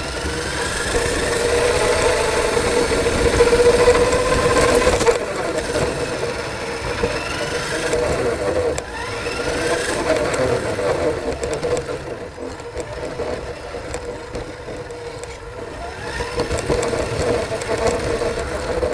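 Electric motor of a radio-controlled model, picked up by the onboard camera, whining up and down in pitch as the throttle changes, with a low rumble underneath. It is loudest a few seconds in.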